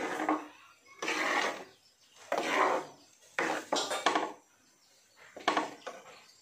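Steel ladle stirring moru curry, a thick buttermilk curry, in a clay pot. About five stirring strokes, the metal scraping and clinking against the clay.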